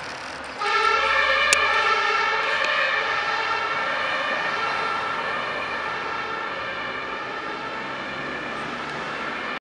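German ambulance's two-tone siren (Martinshorn) switched on suddenly, alternating between two pitches. It grows steadily fainter over the following seconds.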